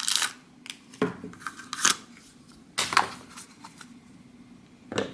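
Plastic blind-box toy packaging being opened and handled: several sharp clicks, snips and rustles about a second apart.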